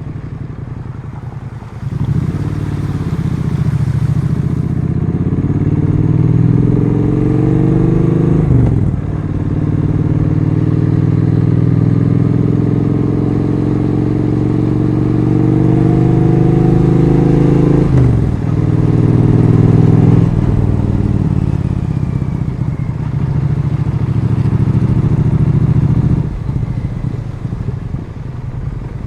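Triumph Street Twin 900's parallel-twin engine through its stock exhaust, accelerating on the road: the engine note climbs, drops with an upshift about a third of the way in, climbs again and drops with another shift about two-thirds in. It then holds steadier and falls back as the throttle eases off near the end.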